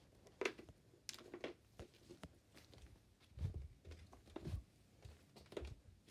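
Faint scattered clicks and a few soft low thumps, the strongest about three and a half and four and a half seconds in.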